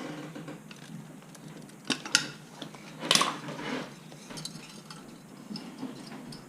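Metal tools and parts clinking and knocking during work on a garbage disposal: irregular clicks, with two sharp knocks about two seconds in and the loudest clatter just after three seconds.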